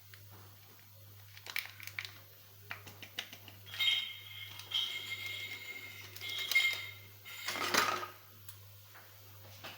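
Kitchen handling sounds: dishes and utensils clicking and clinking, with a high-pitched tone coming and going in the middle and a louder clatter a little before the end.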